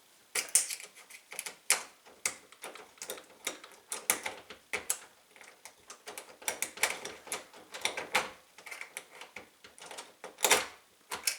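Small screwdriver wiggled inside a Defiant keyed doorknob, pushing on the pawl that holds the exterior knob in while the knob is pulled: irregular metal clicks and rattles, the loudest about ten and a half seconds in.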